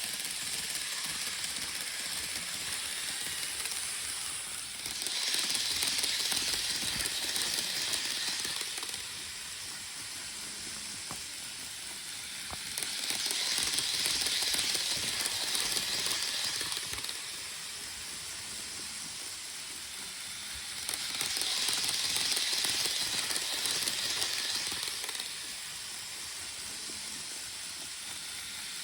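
Model train running laps of a layout: its wheels on the rails and its motor whir make a steady hiss that swells for a few seconds each time it passes close, about every eight seconds, three times.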